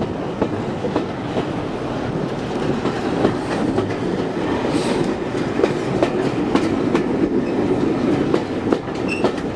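Passenger coach running over the track at speed: a steady rumble of wheels on rail with irregular sharp clicks as the wheels cross rail joints.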